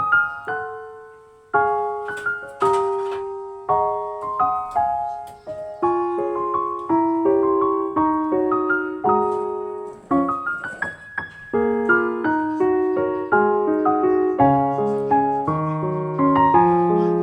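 Background piano music: a melody of struck notes over chords at a moderate pace.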